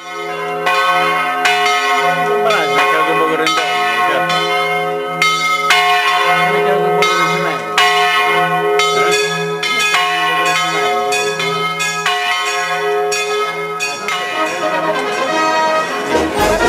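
Church tower bells pealing: repeated strikes, roughly two a second, with their tones ringing on and overlapping.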